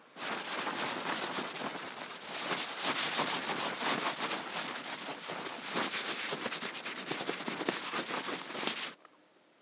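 Gloved hand brushing frost off a tent's rain fly: a steady rubbing scrape full of small crackles, which stops suddenly about nine seconds in.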